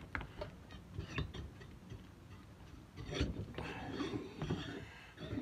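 Light clicks, taps and scrapes of oil pump parts being handled on a workbench during assembly, a few sharp ticks at first and a busier stretch of handling noise in the second half.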